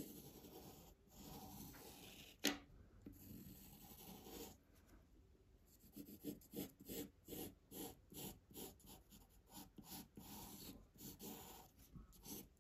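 Faint scratching of a pencil drawn across paper in many short curved strokes, with pauses between runs of strokes. One sharp tap about two and a half seconds in.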